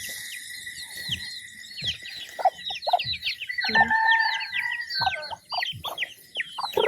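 Chickens: many chicks peeping in rapid, repeated falling cheeps, with a rooster crowing once in the middle.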